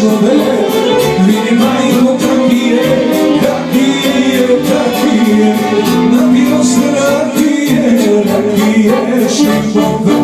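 Live Balkan folk band playing: violin and accordion with a man singing through a microphone, over a steady beat.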